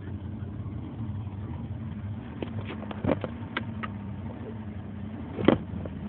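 Boat motor running steadily with a low, even hum, broken by a few sharp knocks, the loudest a little after five seconds in.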